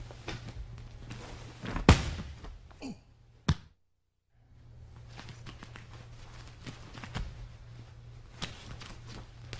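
A heavy thud about two seconds in, like a body or foot landing hard on judo mats, and a smaller knock a second and a half later. After a brief dropout in the sound come soft shuffles and taps of bare feet on the mats. A steady low hum runs underneath.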